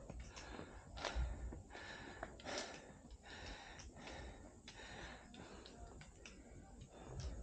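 A person breathing hard, several noisy breaths in and out, with scattered light clicks and a low rumble.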